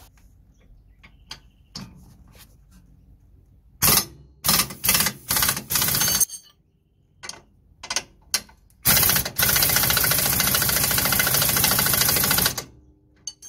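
Impact wrench hammering on a 17 mm bolt through the rear lower suspension arm, in several short bursts about four seconds in, then running continuously for about four seconds near the end as the bolt breaks loose and spins out. A few small metal clicks fall between the bursts.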